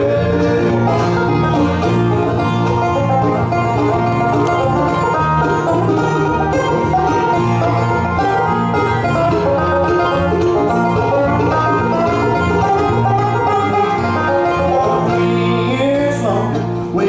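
Live bluegrass band playing an instrumental break, with fast banjo picking over acoustic guitar and mandolin.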